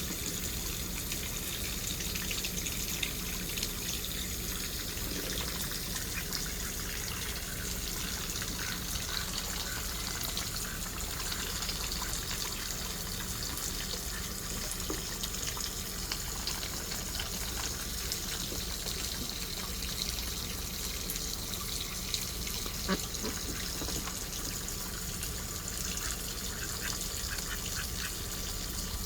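Water trickling and splashing steadily as ducks play in it, with a few faint clicks and taps.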